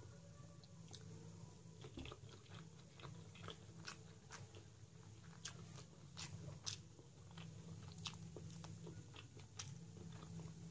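Close-miked eating sounds: a man chewing boiled duck egg yolk, with soft, scattered mouth clicks and lip smacks over a low steady hum.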